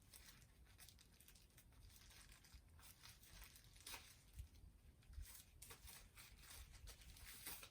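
Faint rustling and crinkling of packaging being handled while the stabilizer's carrying case is taken out of the box, with a few soft clicks.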